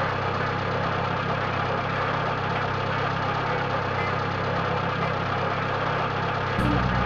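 Truck engine idling steadily at an even speed.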